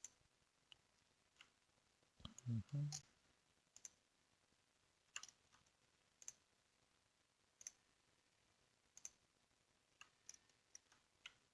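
Computer mouse clicking, about a dozen single clicks at irregular intervals, quiet. A short, low voiced murmur about two and a half seconds in.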